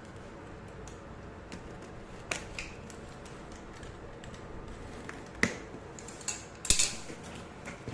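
Packaging being handled during an unboxing: a few light knocks and scrapes, then a louder cluster of knocks and rustling near the end.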